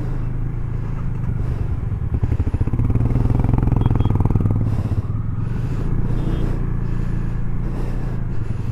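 Motorcycle engine running at low revs, its rapid firing pulses steady throughout, with a second motorcycle close alongside. The engine noise gets louder for a couple of seconds about two seconds in.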